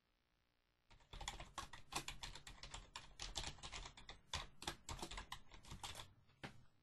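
Faint typing on a computer keyboard: a quick run of keystrokes that starts about a second in and stops near the end.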